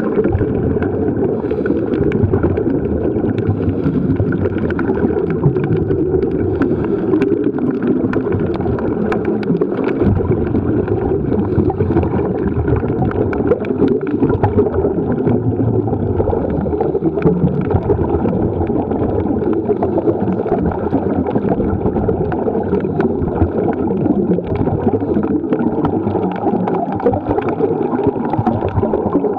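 Muffled underwater noise picked up by a submerged camera: a steady low rumble of moving water with fine crackling throughout.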